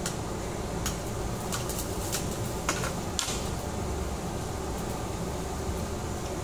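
Steady hum of the restaurant's ventilation and air conditioning, with several sharp clicks of metal tongs and chopsticks against the tabletop grill and steel side-dish bowls in the first half.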